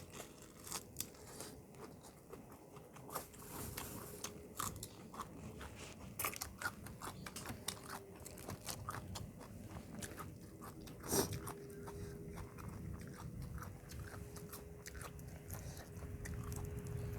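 Close-up eating sounds of a person biting and chewing crisp raw vegetables such as sweet cabbage leaves, with many quick crunches and a louder crunch about eleven seconds in. A faint steady hum sits underneath.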